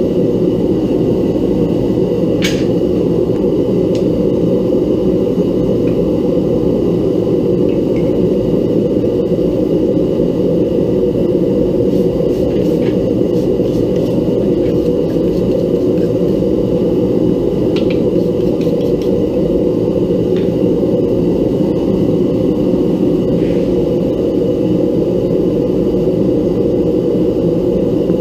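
Homemade forge burner running with a steady, unchanging low rush, with a few faint clicks scattered over it.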